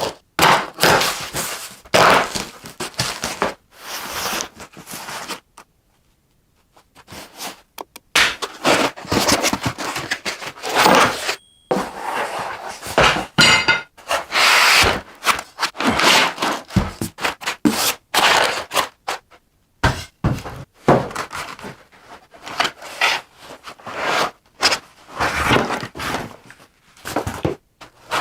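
Unboxing noises in short, abruptly cut snippets: packaging scraping and rustling, with thunks as heavy machine parts are handled and set down.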